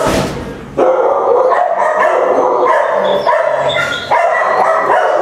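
Several dogs barking and yipping at once in shelter kennels, their barks overlapping almost without a break.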